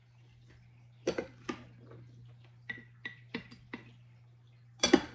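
Large metal spoon clinking and knocking against glass canning jars and a bowl as chopped onions are spooned into the jars: a string of light, irregular clicks, some with a short glassy ring, the loudest knock near the end.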